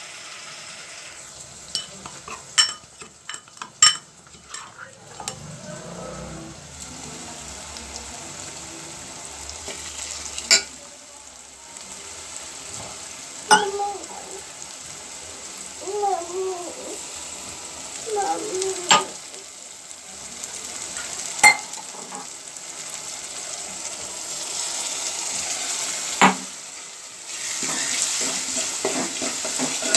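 Chopped onions and a wet spice paste sizzling in hot oil in a pan while being stirred, the spoon clicking against the pan every few seconds. The sizzle grows louder near the end.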